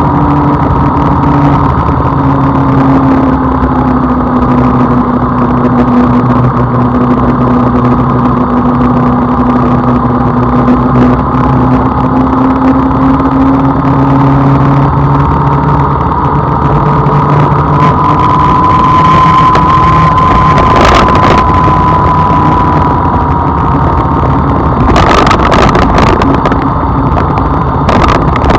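A car driving, with engine and road noise forming a steady drone whose pitch drifts slowly up and down with engine speed. A few short knocks come in the last third.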